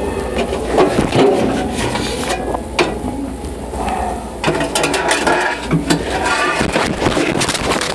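Close handling noise: irregular knocks, clicks and scraping as the camera is moved around against the vent pipe, over a low steady hum that fades out about halfway through.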